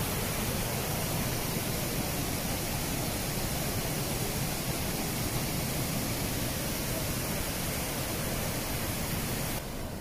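Iguazu Falls: water pouring over the falls makes a steady rushing noise. Near the end it drops suddenly to a quieter, duller rush.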